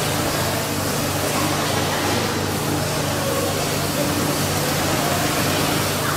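Rotary milking parlour machinery running: a low steady hum under an even hiss, with no distinct knocks or changes.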